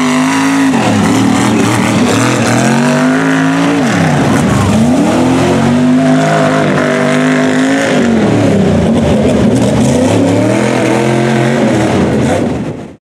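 Big-tired mud trucks' engines revving hard as they churn through water and mud, the pitch dropping and climbing again several times, with the rush of spraying mud and water. It cuts off suddenly near the end.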